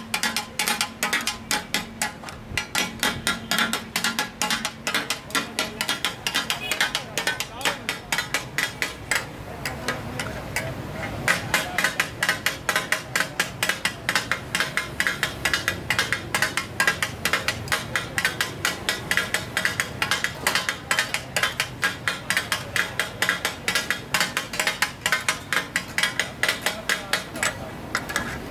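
Taka tak: two steel blade-spatulas striking a large flat iron griddle in a fast, steady rhythm of several clacks a second as offal is chopped and mixed on it.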